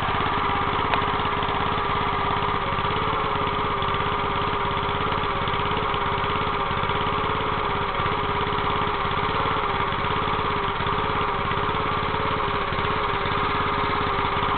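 Small gasoline engine of a homemade backhoe digger idling steadily at an even speed.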